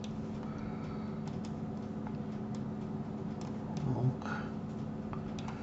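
Scattered light clicks of a computer mouse and keyboard, a dozen or so spread irregularly, over a steady low hum.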